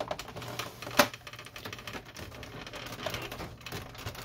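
Plastic side cover of a Samsung CLP-365W laser printer being handled and pried loose: a run of small plastic clicks and rattles, with one sharp snap about a second in.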